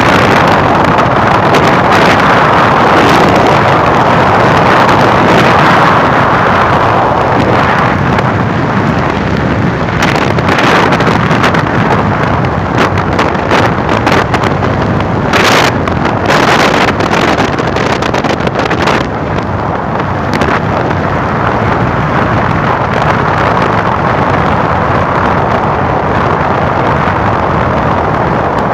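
Wind rushing and buffeting over the microphone of a motorcycle ridden fast, with the bike's running noise buried underneath. The buffeting gets harder and crackly for several seconds in the middle.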